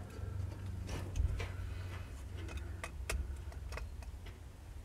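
Irregular light clicks and taps from handling an electric windshield wiper motor and its wire connectors, over a steady low hum.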